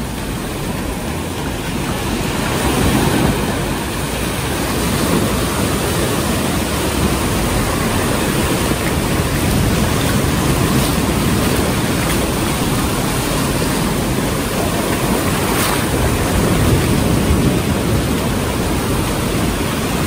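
Small surf breaking and washing up a sandy beach in a steady rush, with wind on the microphone.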